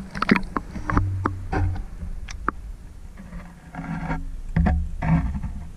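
Irregular knocks, taps and scrapes from a roach fish trap being handled, with heavier thuds a second in and near the end.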